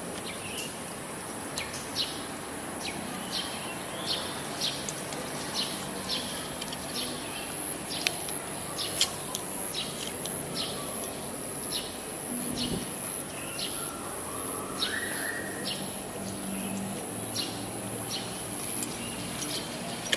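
Outdoor waterside ambience: a steady high insect buzz with short bird chirps repeating about once or twice a second, and one rising call about two-thirds of the way through.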